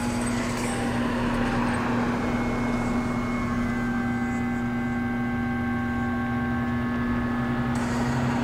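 A steady low hum over a constant rumbling noise, with a few faint held tones in the middle.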